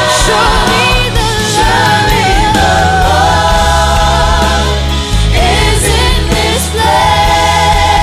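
A group of worship singers singing a gospel song together over band accompaniment with a steady, heavy bass, the voices bending through ornamented runs and holding long notes.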